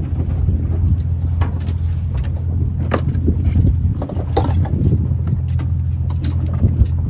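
Steady low drone of a fishing boat's engine, with scattered sharp clicks and knocks as a caught hairtail and the line are handled at the rail and on the wooden deck.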